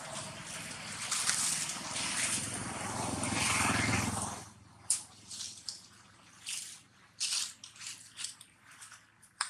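Dry leaf litter rustling and crackling. A continuous rustle with a low rumble runs for the first four seconds or so, then gives way to separate short crackles.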